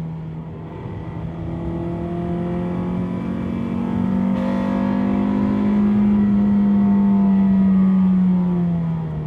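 Honda Civic EP3's K20A2 inline-four engine running at speed. The note climbs slowly, holds, then drops near the end as the revs fall. The engine has developed a rod knock.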